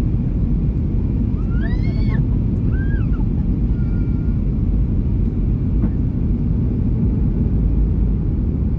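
Steady low roar inside the cabin of a Boeing 737-800 in flight: its CFM56-7B jet engines and the airflow over the fuselage, heard from a window seat. About two seconds in, a short high voice rises and falls briefly over the roar.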